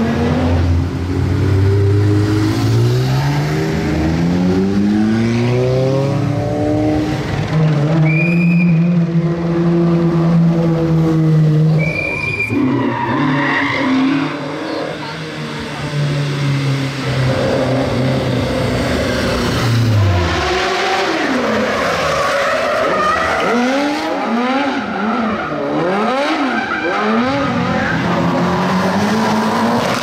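Rally cars driven hard, one after another. First the Audi Sport Quattro S1's turbocharged five-cylinder climbs steeply through the revs and holds high rpm, with two short high chirps. Then a second car's engine is blipped up and down rapidly several times.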